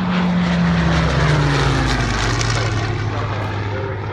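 Hawker Hurricane's Merlin V12 engine and propeller passing by at speed, the engine note dropping steadily in pitch as the fighter goes past, loudest in the first couple of seconds and then slowly fading.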